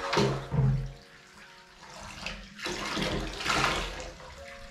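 Bath water scooped and poured over a dog standing in a shallow bathtub, splashing and trickling; one pour at the start and a longer one from about two and a half seconds in.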